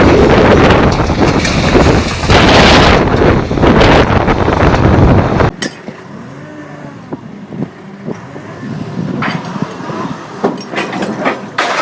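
Loud, dense engine and machinery noise that cuts off abruptly about five and a half seconds in. It gives way to a quieter engine whose pitch rises and falls, with scattered knocks.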